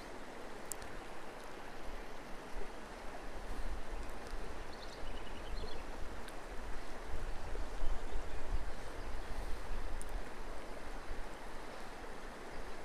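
Steady rushing of a shallow hill-country river running over stones, with a few faint high chirps about five seconds in.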